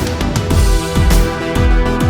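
Background music with a steady beat: deep kick drum about twice a second under sustained melodic tones.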